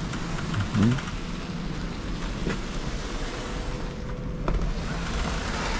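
Car towing a trailer, engine and tyre noise heard from inside the cabin as a steady rumble and hiss, with a few light knocks.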